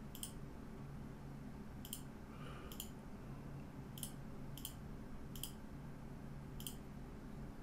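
Computer mouse clicking: about seven single, sharp clicks spread a second or so apart, over a faint steady low hum.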